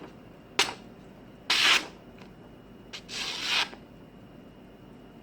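Freshly sharpened katana blade slicing through paper: a brief click, then two short hissing paper cuts about a second and a half apart, the second a little longer.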